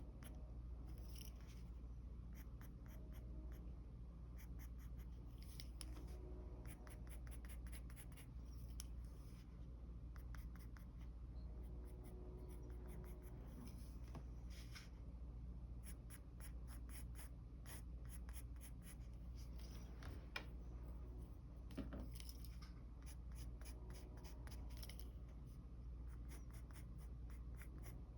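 Faint mechanical pencil scratching on paper in runs of quick, short sketching strokes, over a steady low hum.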